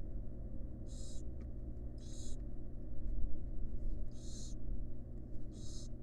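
Barn owl hissing calls: four short, raspy hisses one to two seconds apart, over a steady low hum.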